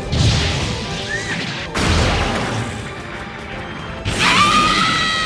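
Two heavy crashing impacts, about two seconds apart, over music. Near the end a high, sustained pitched sound rises in and holds, like a scream or a held note.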